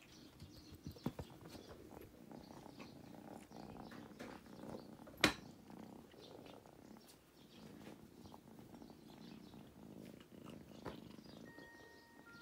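Domestic cat purring steadily on a person's lap. A few light clicks come near the start, and one sharp click about five seconds in.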